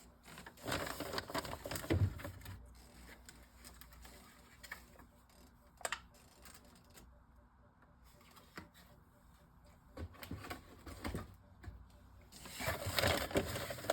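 Drink bottles and cartons being handled and set on fridge shelves: scattered light knocks, clicks and rustles, with a cluster about a second in, single sharp knocks near the middle and more handling near the end.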